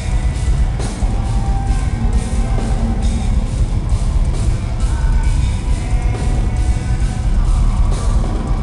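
Progressive metal band playing live: distorted electric guitars and bass over a drum kit with steady, evenly spaced snare and cymbal hits, heard loud and full of low end.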